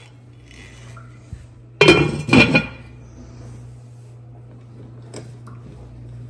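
Two ringing clanks of a white enameled pot and its lid, about half a second apart, as the pot is set on the glass cooktop and covered, then a faint click as a stove knob is turned. A steady low hum runs underneath.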